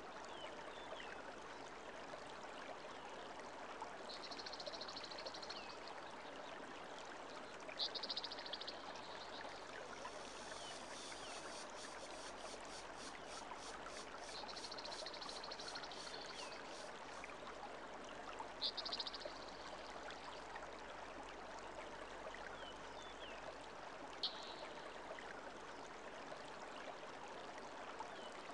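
Muddy river flowing steadily: an even rush of water. Short high chirps and buzzes come through several times, loudest about 8 and 19 seconds in.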